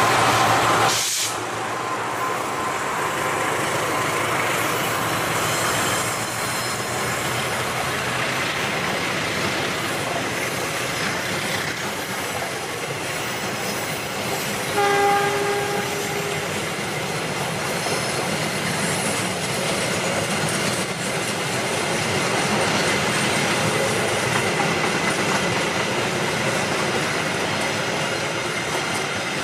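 Long passenger train passing at speed, with a steady rush of wheels on the rails. About halfway through there is one short train horn blast.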